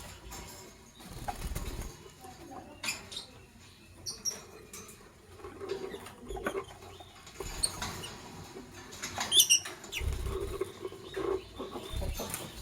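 Lovebirds moving about: scratching, rustling and wing flutters with a few soft knocks, and some brief high chirps, the loudest cluster about three-quarters of the way through.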